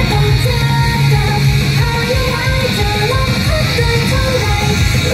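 Female idol group singing a melody in unison over loud, dense rock-style instrumental backing, heard over a live venue's sound system.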